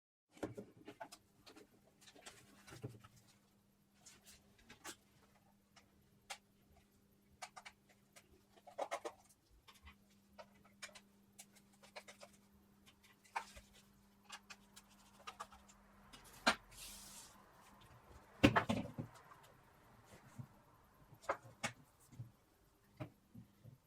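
Irregular plastic clicks, taps and scrapes of a wireless headset's shell being prised apart and handled, the loudest about 16 and 18 seconds in, over a faint steady low hum.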